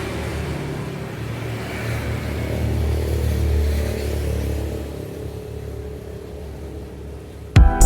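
Sugarcane crushing mill's engine running steadily with a low rumble, swelling a little around the middle and then easing off. Near the end, loud electronic music cuts in abruptly.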